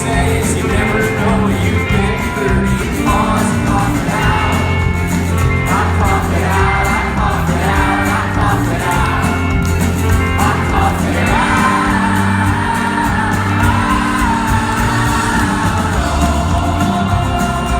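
Live rock band playing a song with a lead vocal, heard from the audience at concert volume.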